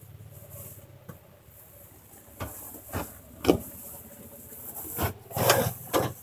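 A series of sharp knocks and clunks, about six in all, over a low steady rumble. The loudest come a little past the middle and near the end.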